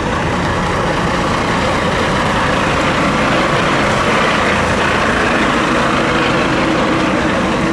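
Engine of a heavy road vehicle, such as a truck, running close by: a steady engine noise that swells a little midway.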